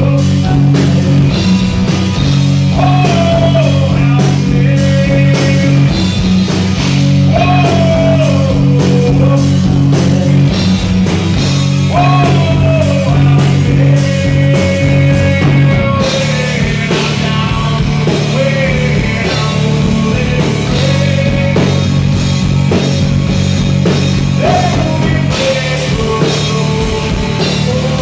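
A rock band playing live: electric guitars, bass and drum kit under a man singing lead, his vocal phrase returning every few seconds. The backing changes about halfway through.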